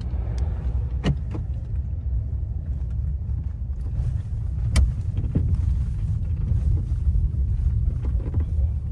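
Car cabin noise: a steady low road rumble with a few light clicks and knocks.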